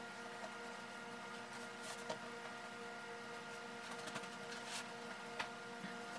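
Steady electrical hum of a running room appliance, with soft rustling of bedding being handled and a few light taps, the sharpest about five and a half seconds in.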